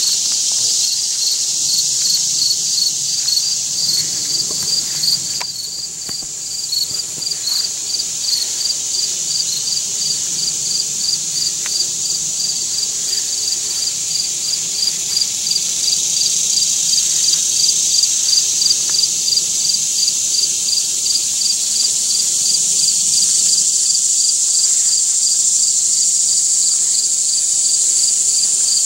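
A chorus of insects: a steady high-pitched drone with a rhythmic chirp repeating about two to three times a second over it.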